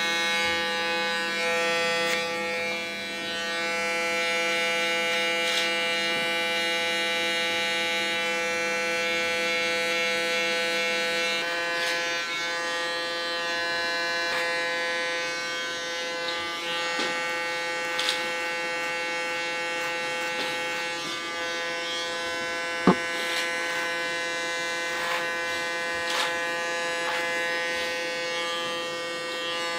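Electric hair clippers buzzing steadily while shearing the hair at the nape. The buzz shifts in pitch a little under halfway through, and a few light clicks and one sharp click come in the later part.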